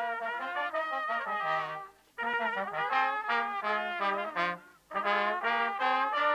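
A small brass ensemble of trumpets and a trombone playing a tune in held, melodic phrases, with two brief breaks between phrases.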